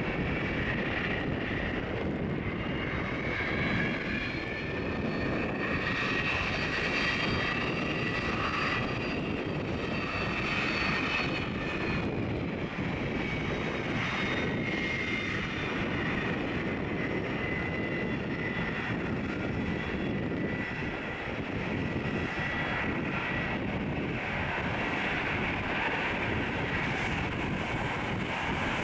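Jet airliner engines running with a steady rush and several high whining tones that slowly rise and fall in pitch, with wind noise on the microphone.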